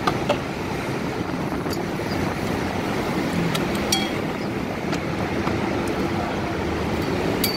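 Steady road traffic noise from a busy road, with a few scattered light clicks and clinks as utensils and ingredient containers at a som tum stall are handled.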